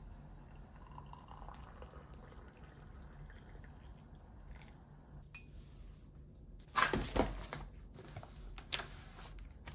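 Faint liquid sounds, dripping or trickling, over a low steady hum, with a short louder noisy burst about seven seconds in and another near nine seconds.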